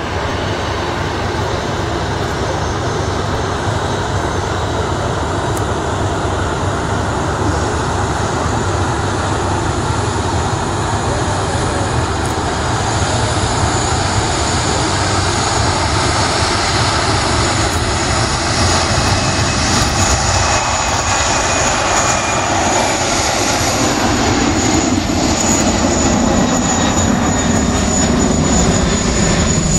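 Twin-engine Boeing 767-300ER jet engines at takeoff thrust as the airliner rolls down the runway and lifts off. A steady jet-engine noise that grows louder and deeper over the last few seconds as the climbing aircraft passes.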